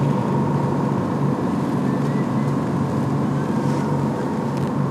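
A boat's engine running steadily at speed, a continuous low drone with faint steady higher tones over it.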